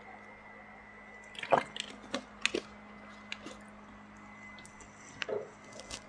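A person sipping and swallowing water: a few short gulps and mouth clicks, the loudest about one and a half seconds in, and another pair near the end.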